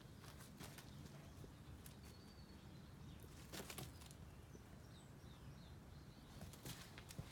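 Near silence: quiet outdoor ambience with faint bird chirps and a few brief soft clicks.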